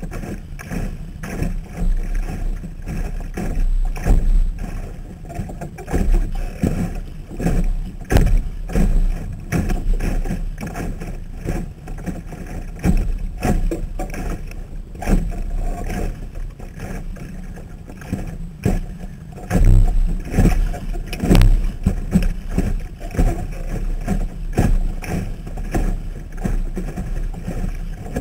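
A Sunfish sailboat under way: a steady low rumble with irregular knocks and slaps of water against the hull, heard muffled through a waterproof camera housing mounted on the boat.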